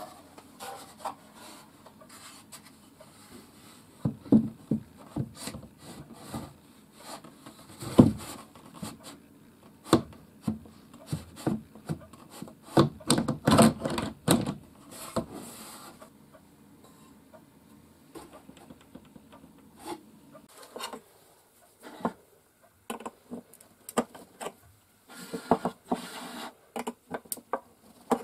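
Irregular handling noises of wood and metal: knocks, clunks and rubbing. They come in scattered strikes, with a dense cluster of louder clunks around the middle. Near the end there is a quicker run of lighter taps as a metal wax tin is handled and its lid is opened.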